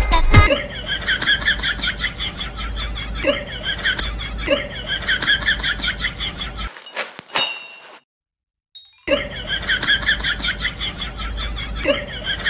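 A high-pitched cartoon laughter sound effect: a rapid, chattering run of short cackles. It breaks off with a brief swoosh about seven seconds in, goes silent for a second, then starts again.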